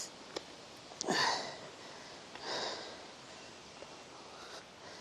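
A person's breaths and sniffs close to the microphone: two short puffs of breath, the first about a second in with a brief falling vocal sound, the second about two and a half seconds in.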